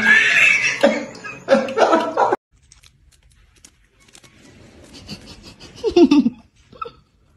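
A person laughing in loud bursts that cut off abruptly about two and a half seconds in. A shorter, quieter laugh or vocal sound follows near six seconds.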